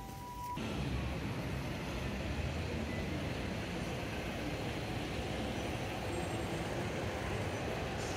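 Urban traffic ambience at a bus terminal and busy road: a steady hum of buses and cars. It starts abruptly about half a second in.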